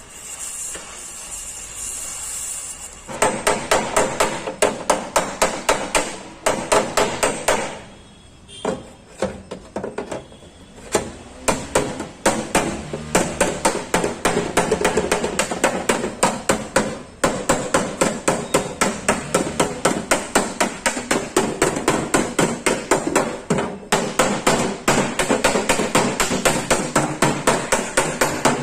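Hand hammer beating out a dent in the sheet-steel body panel of a Maruti 800, in quick, even blows of about three to four a second, with a short let-up about eight seconds in. A steady hiss fills the first three seconds before the hammering starts.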